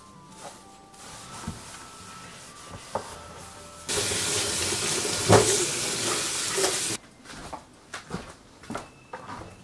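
Kitchen tap running into a stainless-steel sink while a wire rack is washed: a light flow from about a second in, then a strong gush for about three seconds that cuts off suddenly. A few light knocks follow.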